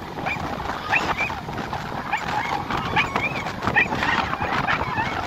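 A crowd of plungers shrieking and yelling as they wade into cold sea water: many short, high-pitched cries overlapping, over steady surf and wind noise.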